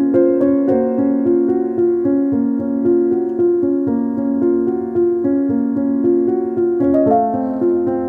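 Background piano music: a melody of held notes over a steady accompaniment, moving up to a higher chord about seven seconds in.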